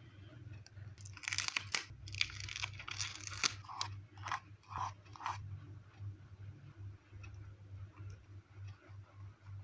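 Crackly handling of a paper sticker for a couple of seconds, then about five short rubbing strokes as the sticker is pressed down onto the notebook page, followed by faint pen scratching on paper.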